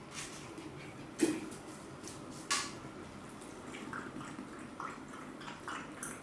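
A dog drinking from a metal bowl: wet, irregular lapping, with two sharp clicks about a second and two and a half seconds in.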